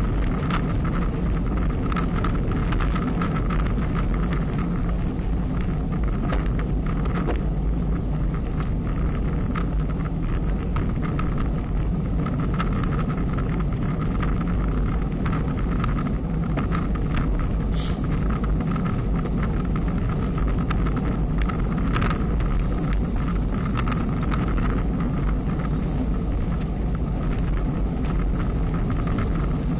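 Wind buffeting the microphone of an action camera riding along on a moving bicycle: a steady low rumble mixed with tyre and road noise and scattered small ticks.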